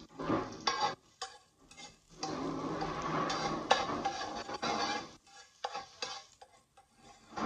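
A metal slotted spatula stirring and scraping minced garlic around a metal frying pan, with light sizzling of the garlic in olive oil on low heat. There are separate scrapes in the first two seconds, steadier stirring from about two seconds to five, then a few short scrapes.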